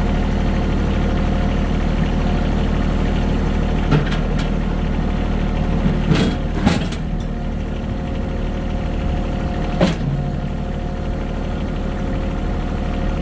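Compact tractor's engine idling steadily, with a few sharp knocks about four, six and ten seconds in.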